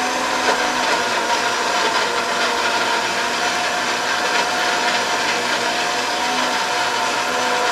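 Countertop blender running steadily, its motor whining at an even pitch as it blends vanilla ice cream and liqueur into a thick shake.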